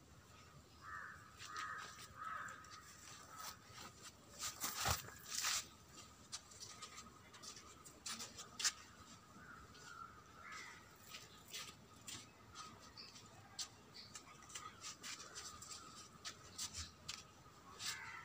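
Short calls of crows cawing now and then, over scattered dry crackles and rustles and a faint steady high hum. The loudest crackles come in a cluster about five seconds in.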